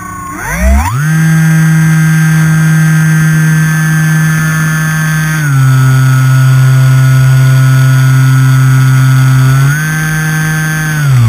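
Electric RC plane's brushless motor (NTM 35-42A 1250Kv) and three-blade pusher propeller, heard onboard, whining at a steady high pitch. It throttles up sharply about half a second in, eases back slightly around halfway, rises again near the end, and then winds down.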